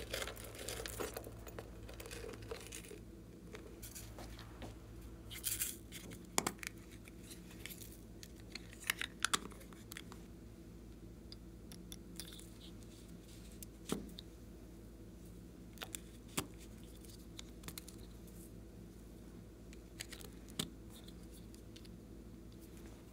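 Glossy slime being stretched and pulled apart, with sticky crackling for the first few seconds. After that come scattered small clicks and taps as two plastic glue sticks are handled.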